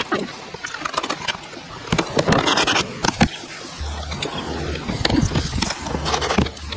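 Irregular knocks, clicks and scraping of wood handled against wood, with a steady low hum coming in about four seconds in.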